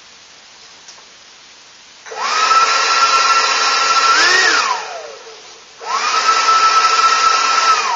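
WeMoTec electric ducted-fan impeller, driven by a brushless inrunner motor, run up twice in short bursts. Each time it spins up quickly to a steady high whine with rushing air, then spins down. The first run rises briefly in pitch just before it drops away.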